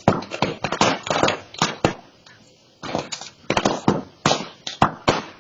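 Burning brush pile crackling and popping: loud, irregular sharp cracks in quick succession, easing off for about a second midway before picking up again.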